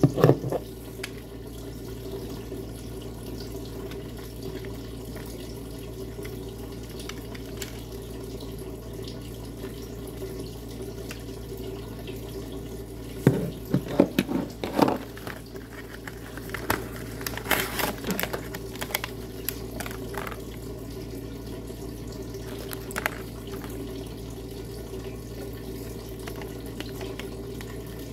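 Hands handling a black plastic motorcycle phone holder and its packaging: scattered plastic clicks and rattles, busiest in a cluster about 13 to 15 seconds in and again around 17 to 20 seconds. Under them is a steady background hiss.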